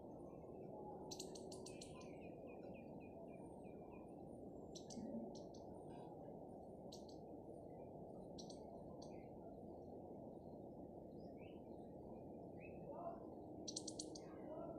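Faint bird chirping: short high chirps every few seconds, with a quick run of about seven lower repeated notes around two seconds in, over a steady low background noise.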